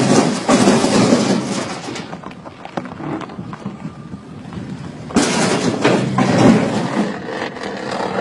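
Wind buffeting a phone microphone held outside a car driving on a dirt road, with tyre noise on the dirt. The rush is loud for the first two seconds, drops, then swells again about five seconds in.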